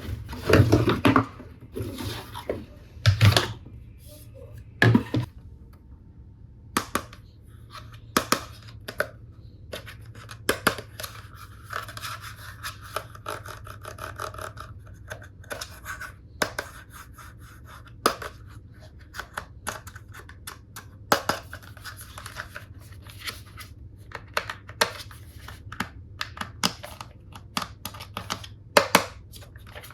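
Plastic toy tool pieces and their packaging being handled close up: scattered light clicks and taps, a few louder knocks in the first five seconds, and a scratching rub around the middle.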